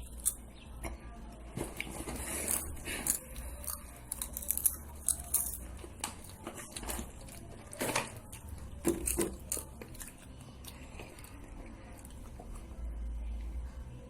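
Irregular crackles, crinkles and squishy clicks from objects being handled and squeezed close to the microphone, ASMR style. The clicks come thick for most of the stretch, then thin out near the end.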